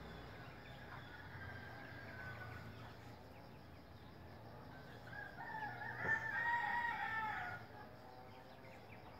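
A rooster crowing once, a pitched call of about two seconds starting about five seconds in, with a fainter call about a second and a half in.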